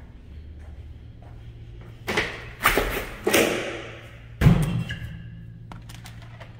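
Clear plastic strip curtain being pushed through: the vinyl strips rustle and slap in four loud bursts over about two and a half seconds, the last with a heavy thud.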